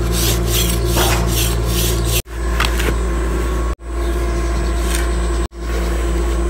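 A long-handled hoe blade scraping and chopping dry, crumbly soil, levelling the sides and floor of a pit. Rhythmic strokes, about three a second, come through in the first two seconds. A steady low hum runs underneath, and the sound cuts off abruptly and restarts three times.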